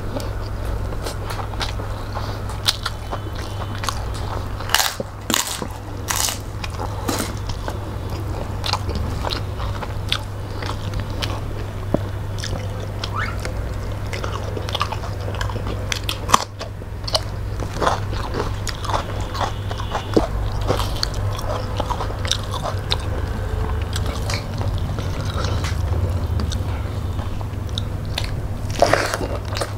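Close-miked eating sounds of two people eating rice and fish curry by hand: chewing, biting and wet mouth sounds, with many short sharp clicks. A steady low hum runs underneath.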